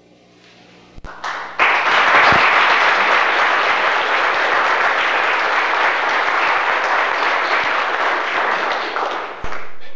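Audience applauding, starting suddenly about a second and a half in and holding steady. A few low thumps stand out, one just before the clapping starts and one near the end.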